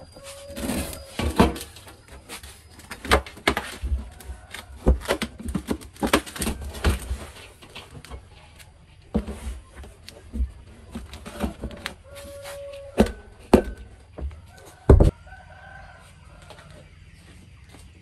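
A plastic drum knocking and scraping on concrete and against an aluminium basin as chopped greens are tipped out, a string of sharp knocks with one heavy thump about three-quarters of the way through. Chickens call, and a rooster crows.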